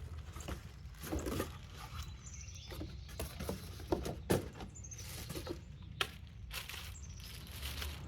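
Cardboard packaging being handled as a pruning saw is unpacked: irregular scraping and rustling with a few sharp knocks and faint squeaks.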